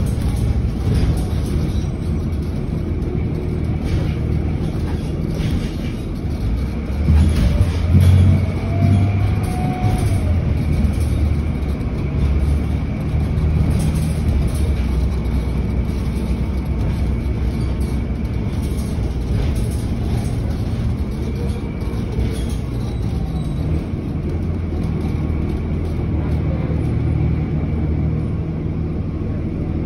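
Inside a moving city transit bus: steady engine and road rumble with occasional knocks and rattles and a faint steady high whine, swelling louder about eight seconds in.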